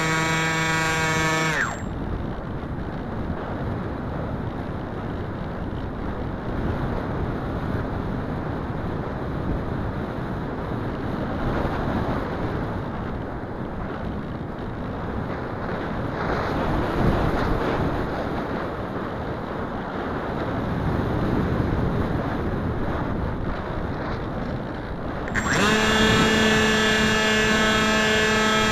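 Wing Wing Z-84 flying wing's electric pusher motor whining in flight, cut off about two seconds in, followed by a long stretch of wind rushing over the onboard camera as the plane glides unpowered. Near the end the motor comes back on at a slightly higher pitch.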